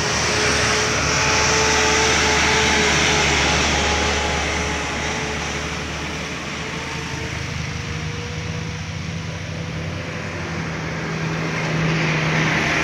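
Diesel engines of passing trucks, including a loaded sugarcane truck, running steadily along with tyre noise. Near the end a coach's engine grows louder as it passes close.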